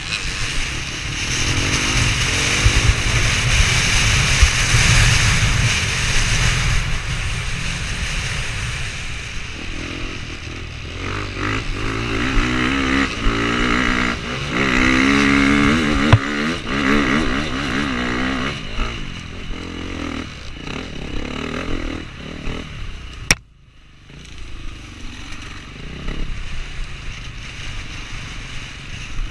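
Dirt bike engine racing over rough terrain, heard from a camera mounted on the bike, revving up and down repeatedly as the rider works the throttle and gears. There are heavy rushing and rattling noises. The sound briefly cuts out with a click late on.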